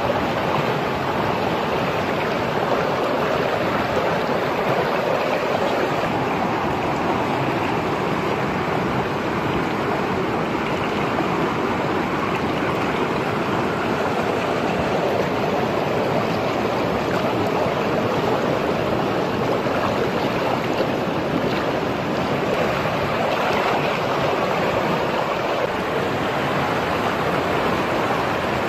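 Fast river water rushing over rocks, a steady, even wash of noise throughout.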